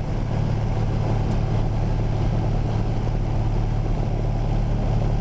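1956 Cessna 172's six-cylinder Continental O-300 engine and propeller running at takeoff power during the takeoff roll, a steady drone.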